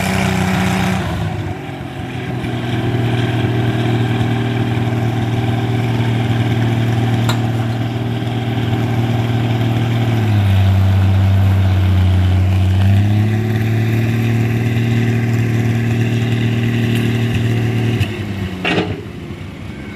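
Allis-Chalmers tractor engine running at steady revs at the end of a pull. About ten seconds in its note drops lower for a couple of seconds, then comes back up. Near the end the engine note falls away.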